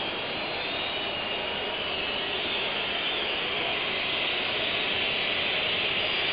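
Football stadium crowd noise: a steady roar of a large crowd with high, wavering whistles through it, growing slightly louder as a penalty is about to be taken.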